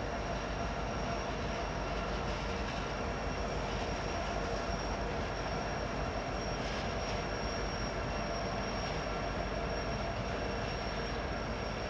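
BNSF diesel-electric freight locomotives rolling past with their engines running, a steady mechanical rumble with a steady high-pitched whine over it.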